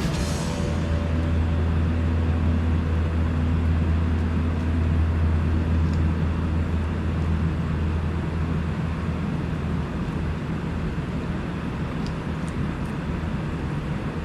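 A steady low machine hum over a constant rushing noise, with the hum easing after about nine seconds.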